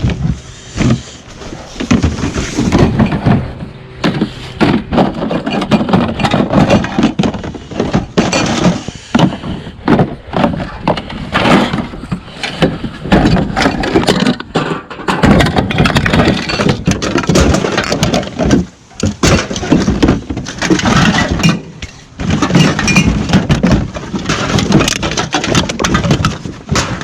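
Continuous irregular clattering, knocking and thudding of scrap and recyclables being handled, tossed and shifted.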